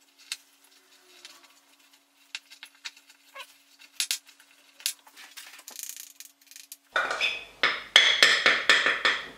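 A spoon mixing butter and icing sugar in a glass bowl: light scrapes and scattered clicks at first, then from about seven seconds in, fast loud knocks and scrapes of the spoon against the glass, about three a second, as the filling is beaten.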